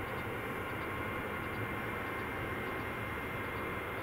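Airbus A320-214's twin CFM56 jet engines at takeoff thrust, heard from a distance: a steady jet noise with a thin whine held on one pitch.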